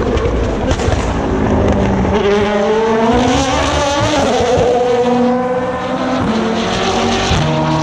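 Endurance race cars running through a slow corner, their engine notes rising and falling as they accelerate and change gear, with several cars heard at once.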